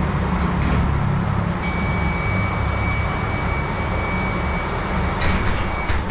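Electric bus moving, heard from inside the passenger cabin: a steady low road rumble, joined about a second and a half in by a steady high-pitched whine that stops just before the end. A few light clicks near the end.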